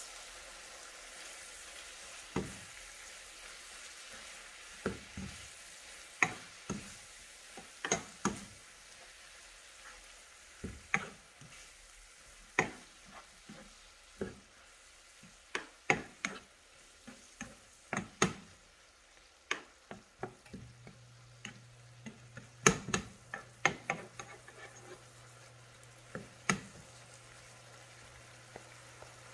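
Fermented silver fish (ginamos) and chopped vegetables sizzling in a frying pan while a spoon stirs them, knocking and scraping against the pan in irregular clicks. A low steady hum comes in about two-thirds of the way through.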